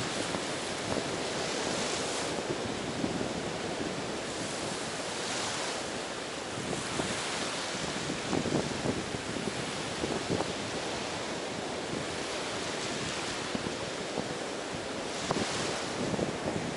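Ocean surf washing onto a beach, a steady wash of water that swells as a wave breaks every few seconds.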